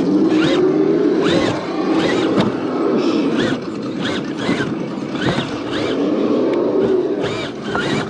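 Radio-controlled crawler truck's electric motor and geared drivetrain whining under throttle, the pitch rising and falling as the truck eases forward and stops again, with shorter higher whines every second or so.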